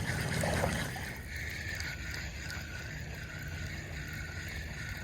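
Steady rush of flowing river water, with a low rumble that may be wind on the microphone.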